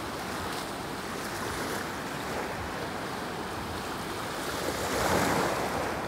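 Ocean surf: waves breaking and washing in as a steady rush, with one wave swelling louder about five seconds in.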